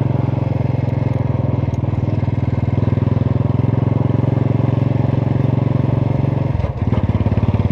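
Motorcycle engine running steadily while riding, with a steady pulsing note. Near the end the sound dips briefly, then picks up again.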